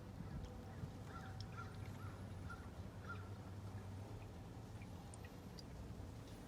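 Motor oil glugging faintly as it pours from a plastic jug through a funnel into the engine's filler neck: a few soft glugs about every half second in the first three seconds, over a low steady hum.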